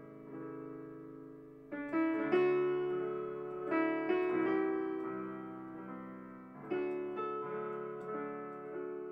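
Slow, gentle piano music: chords and single notes struck every second or two, each ringing and fading away.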